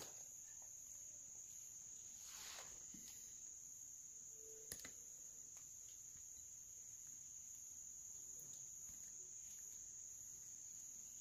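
Faint, steady, high-pitched insect trilling, as of crickets, with a few soft clicks.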